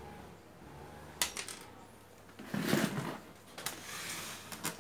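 Handling noises at a repair bench: a few sharp light clicks, with a longer rustling clatter about halfway through, as small resistors' wire leads are worked by hand and a CRT TV's circuit board is moved.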